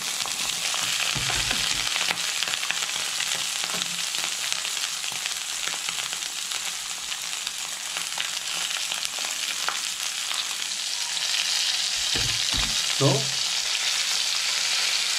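Chicken cutlets wrapped in mutton fat sizzling and crackling in a stainless steel pan on a low flame as the fat renders. The sizzle grows a little louder from about eleven seconds in, and there are a couple of dull knocks near the end.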